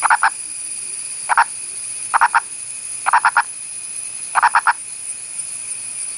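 Indian purple frog calling: five short bursts of two to four quick clucking notes each, about a second apart, over a steady high-pitched drone.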